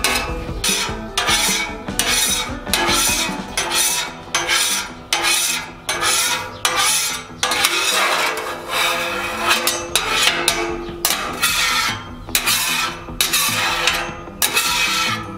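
Steel griddle scraper rasping across the still-warm steel cooktop of a 36-inch Blackstone griddle in quick repeated strokes, pushing grease and food scraps toward the grease cup.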